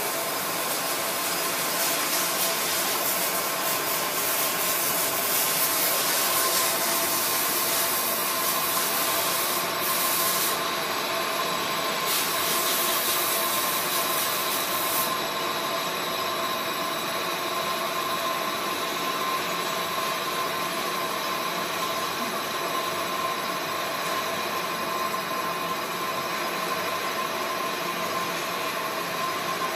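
Metalworking lathe turning a large metal disc: a steady cutting hiss over the machine's running hum, with a few held tones. The brightest hiss eases around halfway through.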